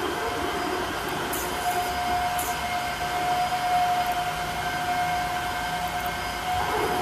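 Cordless wet-and-dry vacuum cleaner running, a steady motor whine over a rushing of air, with two brief hisses in the first few seconds.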